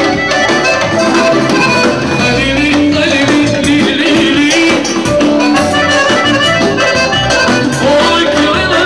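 Band playing Balkan dance music at party volume: an ornamented, wavering lead melody over a steady beat.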